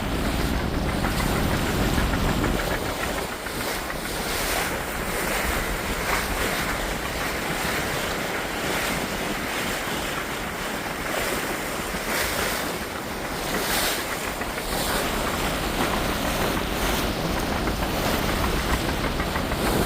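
Water rushing and splashing along the hull of a Kufner 54 sailing yacht under sail with its engines off, swelling and easing with the waves. Wind buffets the microphone, heaviest in the first couple of seconds.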